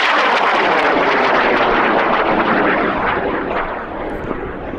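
High-power rocket motor firing: a loud rushing roar that holds steady, then begins to fade about three seconds in as the rocket climbs away.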